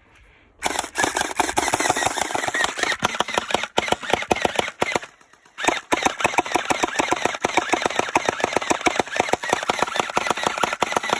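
Electric gel blaster firing on full auto: two long runs of rapid, evenly spaced shots, about ten a second, with a short pause about five seconds in. It keeps firing until the magazine runs empty.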